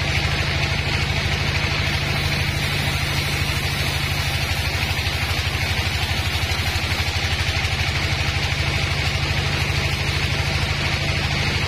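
Sawmill log bandsaw running steadily, its blade ripping lengthwise through a log of very hard timber. It is a steady low machine drone with a fast, even pulse, under a steady hiss higher up.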